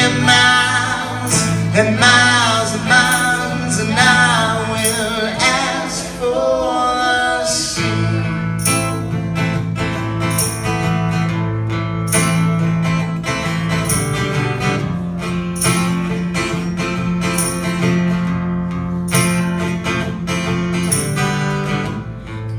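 Live acoustic duo: a steadily strummed acoustic guitar with a woman singing over it, the singing strongest in the first seven seconds or so and thinning out after that while the guitar carries on.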